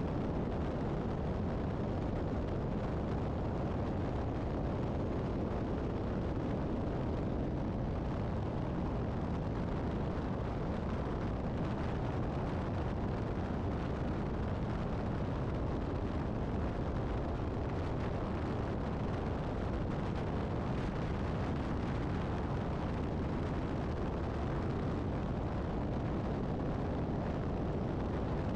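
Steady highway rumble of tyres and wind while driving alongside a semi truck, with no distinct engine note or separate events.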